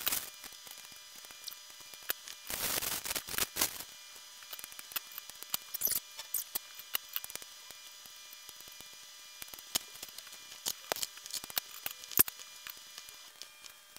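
Cut roses being handled and arranged in a ceramic vase: scattered light clicks and taps of stems and leaves against the vase, with a longer rustle of the flowers' wrapping about two and a half seconds in and a shorter one near six seconds. A faint steady hum sits underneath.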